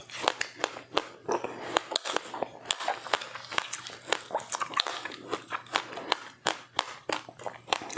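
Close-up chewing of crunchy seeds: quick, irregular sharp crunches, several a second.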